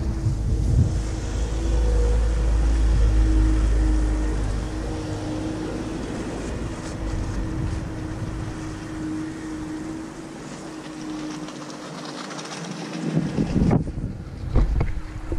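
Storm wind buffeting the microphone, heaviest for the first few seconds and then easing, over a steady droning hum; the gusts pick up again near the end.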